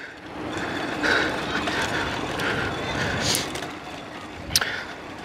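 Mountain bike rolling over interlocking paving stones, its tyres and frame rattling continuously, with one sharp click about four and a half seconds in.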